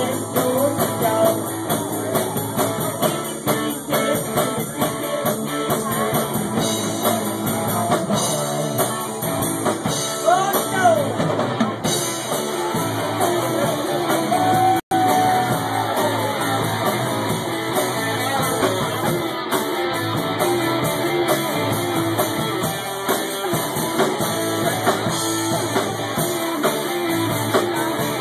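Live rock band playing, with electric guitar and drum kit. The sound cuts out for a split second about halfway through.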